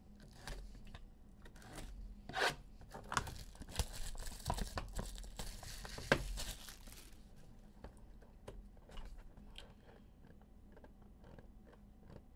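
Plastic wrapper and seal being torn and crinkled off a 2021 Leaf Ultimate Draft Football trading card box, with sharp snaps and clicks of plastic and cardboard. The rustling dies down after about seven seconds into lighter handling of the box.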